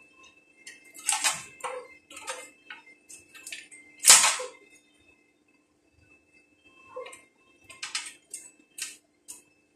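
Steel pieces clinking and knocking against a steel channel as they are handled and set in place: a run of short metallic clinks, the loudest about four seconds in, with more near the end, over a faint steady hum.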